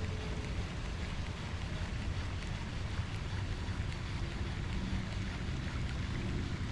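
Wind rumbling on the microphone outdoors: a steady, low, noisy rumble without any clear events.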